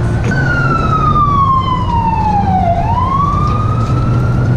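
Emergency vehicle siren wailing: its pitch falls slowly for about two and a half seconds, then rises again, over a steady low rumble of traffic.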